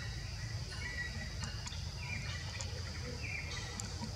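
Forest ambience: a steady high insect drone, with about three short chirping calls, some sliding slightly downward, over a low rumble.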